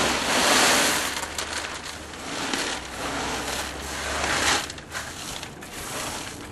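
Expanded clay pebbles pouring from a bag into a plastic grow bed: a loud rushing rattle of many small clicks, loudest at the start, then rising and falling as the pebbles are shifted by hand.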